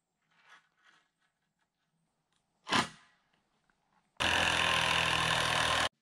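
A single sharp knock, like a hammer blow on wood, then a power tool running loudly for almost two seconds, starting and stopping abruptly. Faint scraping and handling sounds come before.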